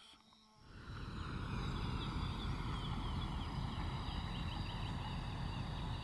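Tropical rainforest dawn chorus fading in after a short hush: many short bird chirps over a steady insect hum and a dense low background.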